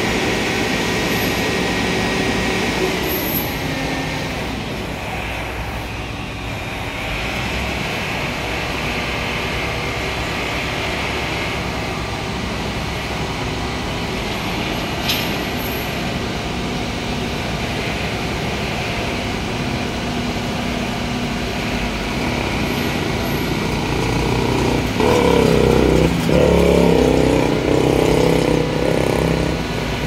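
Street traffic: the steady running of engines and tyres of passing vehicles, with a louder vehicle going by close about 25 seconds in.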